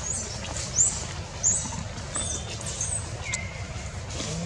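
Long-tailed macaque giving a run of short, high-pitched squeals, about five in quick succession, each rising then falling in pitch.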